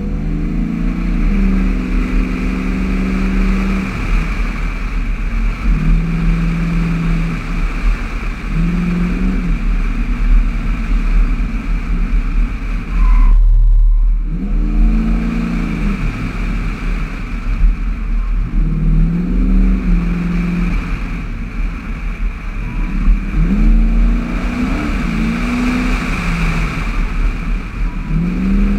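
Chevrolet Impala SS's V8 engine driven through an autocross course, repeatedly accelerating and easing off so that its pitch rises and falls every few seconds, over a steady low rumble. About halfway through, a louder burst of low rumble briefly covers the engine.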